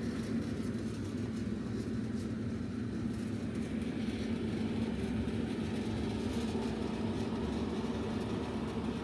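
HVAC air handler running: a steady low mechanical hum with a constant drone.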